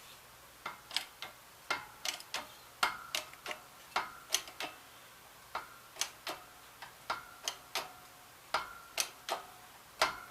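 Early raindrops ticking irregularly on a hard surface, one to three sharp ticks a second, some with a brief ringing ping.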